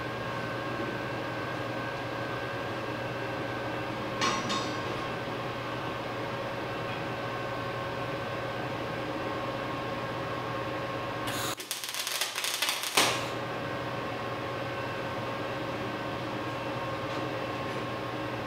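Steady machine hum; about eleven seconds in, an electric arc tack weld on steel crackles and sizzles for about a second and a half, with a shorter crackle about four seconds in.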